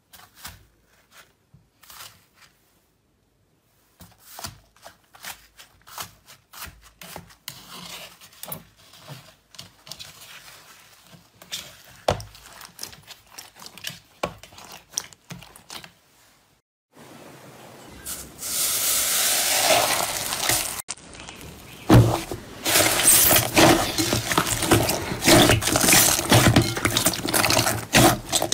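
Slime being poked, squeezed and stretched: many small clicks and pops, sparse and soft at first, then turning into much louder, dense crackling and squishing for the last third.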